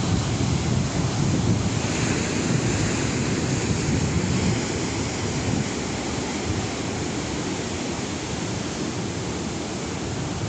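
Sea waves surging and washing on the shore, with wind rumbling on the microphone. A brighter, hissing wash of surf builds about two seconds in.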